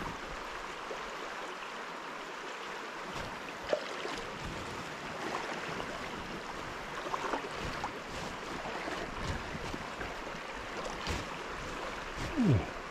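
River water running past with a steady rushing hiss, with a few faint knocks. Near the end, a brief squeak that falls in pitch is the loudest sound.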